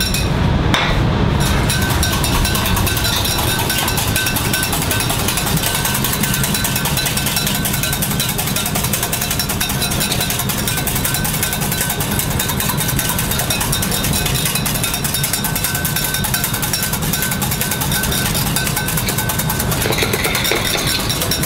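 Wire whisk beating egg yolks in a small stainless-steel saucepan: a fast, steady clatter of wire against metal, whipping yolks, water and tarragon vinegar into the foamy base for a béarnaise. A steady low hum runs underneath.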